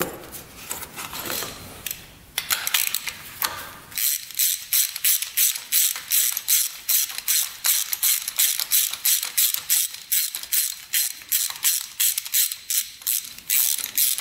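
Socket ratchet clicking as it unscrews a spark plug from a motorcycle cylinder head. After some soft handling, the clicking starts about four seconds in and keeps up at about three clicks a second.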